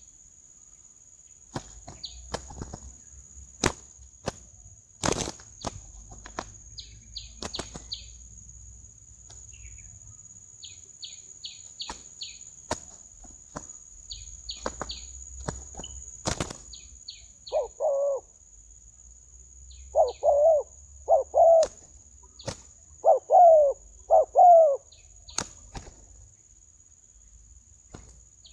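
Two spotted doves fighting, their wings beating and slapping in scattered sharp strokes. In the second half there are five loud, short bird calls in quick groups, the loudest sounds here.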